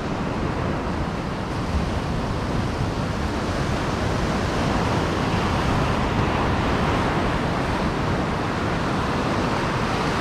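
Ocean surf breaking close by and washing up a sandy beach: a steady rushing noise with no distinct events.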